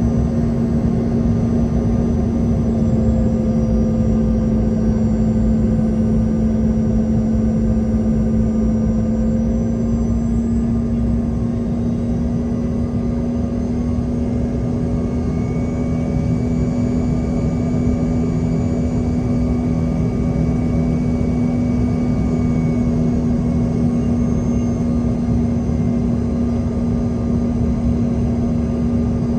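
Cabin noise inside a Bombardier CRJ200 regional jet on approach: the steady drone of its rear-mounted CF34 turbofans and airflow, with a strong steady hum over a low rumble and faint high whines.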